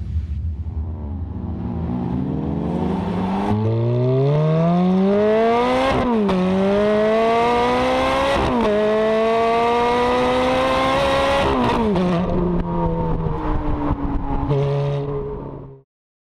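Sports car engine heard close to its exhaust, accelerating hard through the gears: the pitch climbs steadily and drops sharply at three upshifts. It then eases off and settles to a lower, steadier note before cutting off suddenly near the end.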